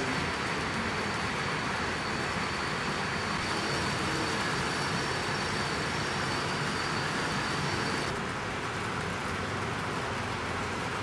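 Steady running noise of an HO-scale model railway hall: model trains rolling along the track under a constant hiss, with a faint steady high whine. The noise drops a little about eight seconds in.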